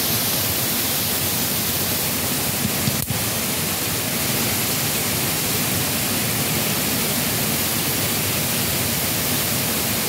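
Waterfall rushing in a steady, unbroken hiss, with one brief click about three seconds in.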